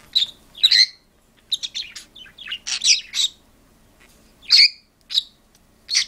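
Parakeet and cockatiel squabbling: a string of short, sharp, high chirps and squawks, coming in quick runs with brief pauses between them.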